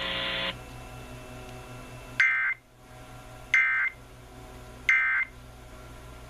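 Emergency Alert System end-of-message signal over FM radio: three short bursts of digital data tones, each well under half a second and about 1.3 s apart, marking the end of the alert.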